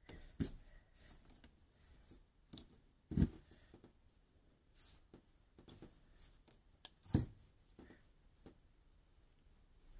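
Needle-nose pliers and small parts handled on a tabletop: scattered clicks and knocks with light rubbing between, the loudest about three seconds in and again about seven seconds in.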